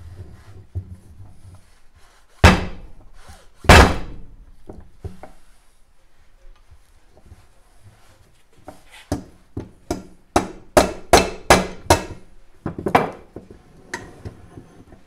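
Rubber mallet striking the aluminium crankcase of a 1964 Norton Atlas engine to knock the case halves apart. Two heavy blows come a few seconds in, then a quick run of about eight lighter taps and two more near the end.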